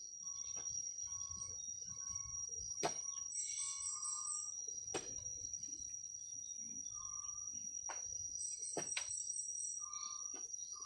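Insects shrilling in one steady high note, with birds calling in short repeated notes and two quick runs of high chirps. A few sharp knocks stand out, the loudest about three seconds in.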